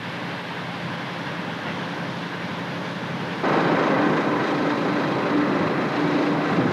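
A concrete pump truck's engine running steadily, then throttling up sharply about three and a half seconds in, with a steady hum over a noisy rush.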